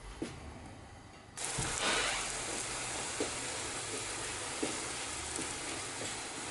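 Pancake sizzling in a hot frying pan: a steady hiss that starts abruptly about a second and a half in, with a few faint ticks.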